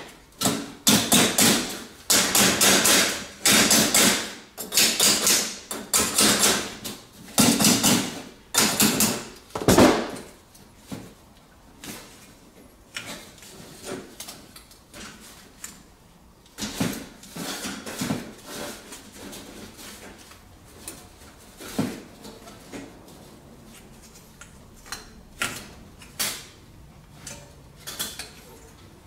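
Hand tool work on a baseboard heater's metal pipe: fast, rough scraping strokes in bursts for about the first ten seconds, then scattered light clicks and knocks as metal parts are handled.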